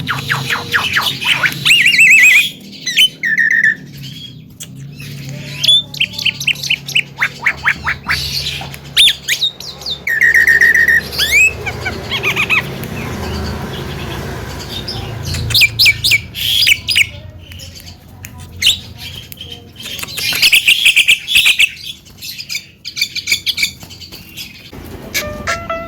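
Javan myna (jalak kebo) singing: bouts of rapid chattering rattles and squawks mixed with a few short whistled notes, over a low steady hum.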